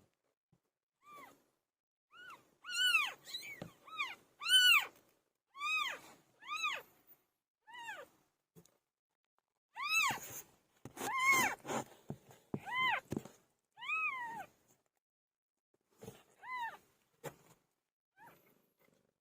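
Newborn kittens mewing: a string of short, high-pitched calls, each rising and falling in pitch, with a couple of brief pauses.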